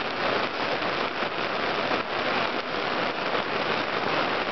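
Heavy rain pouring onto a lake and onto the boat's fabric canopy overhead: a steady, dense hiss of countless small drops.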